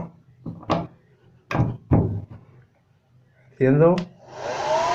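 Xiaomi hair dryer switched on about four seconds in: the motor spins up with a rising whine that settles to a steady pitch over a steady blowing hiss.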